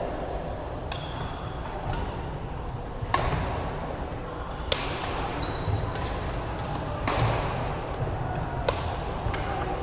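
Badminton rackets striking the shuttlecock in a rally: about seven sharp cracks a second or so apart, each echoing in a large sports hall, over the hubbub of other games.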